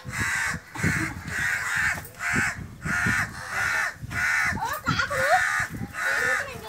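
Crows cawing harshly over and over, about two caws a second, mobbing a cat up in the tree.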